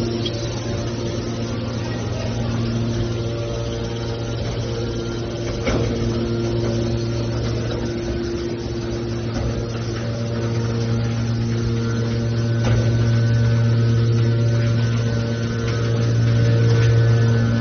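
Motor of a mini aluminum can baler running with a steady hum, a few faint knocks, and getting slightly louder in the second half.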